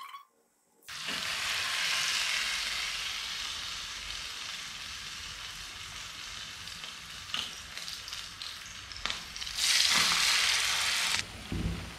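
Hot oil sizzling in a frying pan as spoonfuls of vegetable pakora batter deep-fry, starting about a second in. The sizzle flares up louder near the end as another spoonful of batter goes into the oil.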